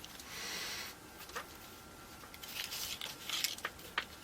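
Quiet handling noises from working on a small speaker's wiring by hand. A soft scraping rustle lasts about a second near the start, followed by scattered light clicks and scrapes.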